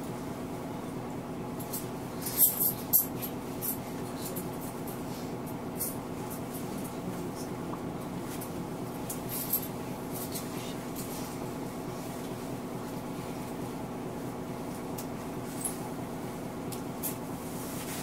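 Mitsubishi Aerostar bus's diesel engine idling steadily, heard from inside the passenger cabin. A cluster of sharp clicks comes about two and a half seconds in, with a few fainter clicks later.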